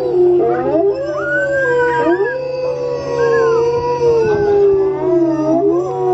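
Several wolves howling together: long, overlapping howls that slide up and down in pitch.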